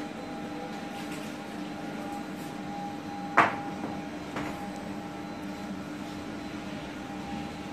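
Mullion milling machine for window profiles running with a steady electric hum, with a sharp clack about three and a half seconds in and a fainter one about a second later.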